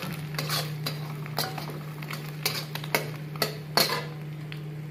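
Steel spatula stirring diced carrot and egg in frying oil in a kadhai (wok), with irregular sharp taps and scrapes of metal on the pan. A steady low hum runs underneath.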